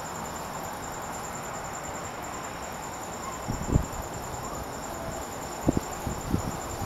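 Night insects, crickets, chirping in a fast, even, high-pitched pulsing trill over a steady hiss. A few short dull thumps stand out, one a little after the middle and several near the end.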